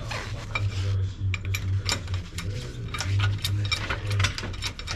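Irregular metallic clicks and ticks from working a car jack under the vehicle, over a steady low hum.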